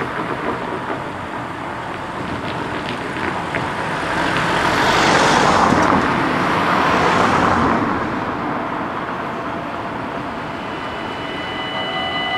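Road traffic crossing the level crossing, loudest as a car passes about five to seven seconds in. Near the end the crossing's warning bells start ringing steadily as the red lights come on, signalling that a train is approaching.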